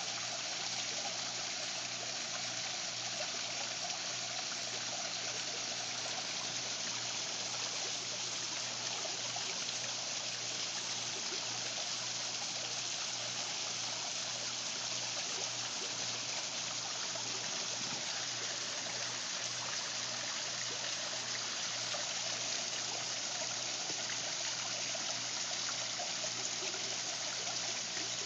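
Several thin streams of water splashing down a rock waterfall into a pool: a steady, even rush with a low hum underneath.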